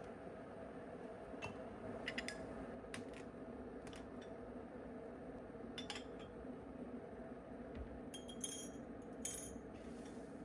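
Light clinks and taps of small hard objects being handled, scattered through, with a quick cluster near the end, over a steady low hum.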